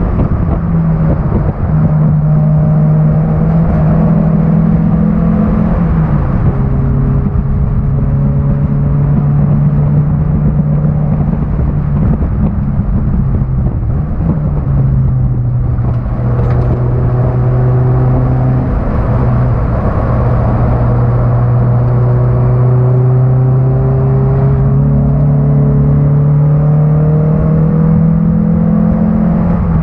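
1991 Honda Accord's four-cylinder engine running hard at racing speed, heard onboard over steady road and wind noise. Its pitch climbs slowly through long pulls and drops a few times, around six and fifteen seconds in.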